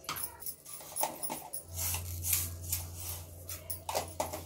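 Cumin seeds and asafoetida (hing jeera) crackling and spluttering in hot oil in a kadai, a quick irregular run of small pops, with a low steady hum joining about one and a half seconds in.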